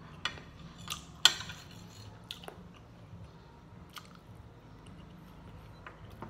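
A person eating rice with a spoon: a handful of sharp clicks and taps of the spoon and food against the plate, the loudest a little over a second in, with soft chewing between them.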